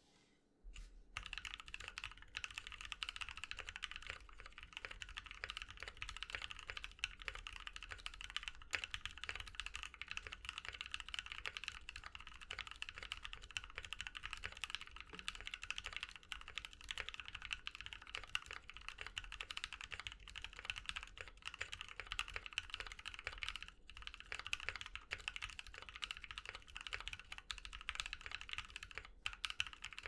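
Custom 60% mechanical keyboard being typed on fast and continuously, starting about half a second in, with a few brief pauses. It has NK Cream linear switches lubed with Krytox 205g0 on a brass plate in a PSD60 aluminium case, with JTK keycaps.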